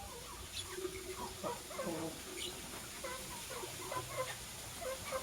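Lovebirds chattering: a rapid, continuous stream of short chirps and squeaks, with a few sharper clicks.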